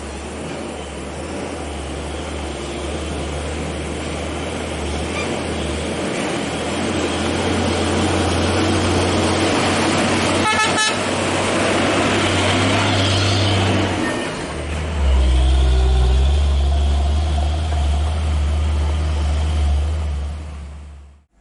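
Heavy truck diesel engines running under load on a steep climb, with a brief horn toot about halfway through. The engine note gets louder a few seconds later.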